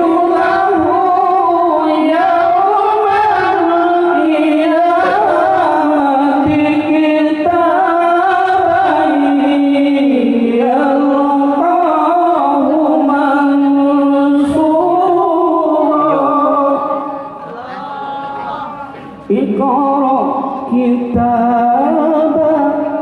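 A male qari chanting Quran recitation (tilawah) into a microphone, in long ornamented phrases with held, slowly bending notes. The voice drops away briefly about three-quarters of the way through, then takes up a new phrase.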